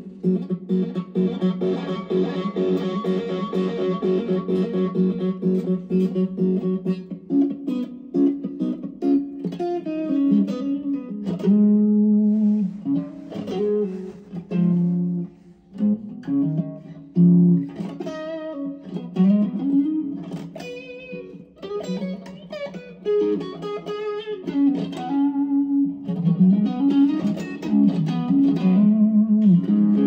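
Electric guitar played through a BJpress Soul Clone, a Klon Centaur–style overdrive pedal, into a Fender Mustang amp's VOX AC30 simulation. It opens with about six seconds of ringing strummed chords, then moves into a single-note lead with string bends.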